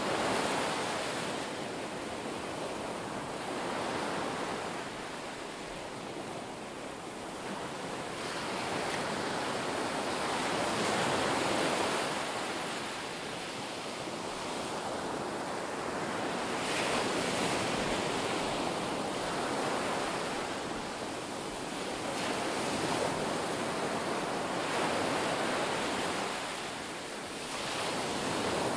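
Shallow sea water and wave surge picked up by a camera underwater: a steady rushing hiss that swells and fades every few seconds.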